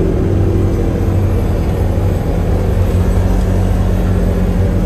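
Side-by-side off-road vehicle driving on a dirt road, heard from inside its open cab: the engine runs steadily under a loud, even road noise.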